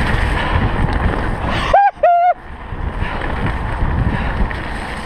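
Mountain bike ridden fast over a rough trail: steady rumble and rattle of tyres and frame with wind buffeting the microphone. About two seconds in the riding noise cuts out for half a second while two short, high-pitched, vocal-like notes sound, an edited-in sound clip.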